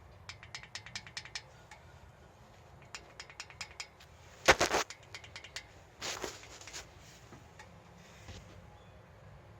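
A ratchet wrench clicking in short quick runs, about eight clicks a second, with two louder noisy bursts around the middle, the first about four and a half seconds in being the loudest.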